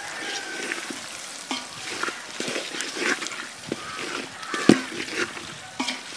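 Wooden spatula stirring and scraping a prawn and palm-sprout masala around a metal pot, the mixture sizzling in hot oil, with occasional knocks of the spatula against the pot, the loudest a little before five seconds in.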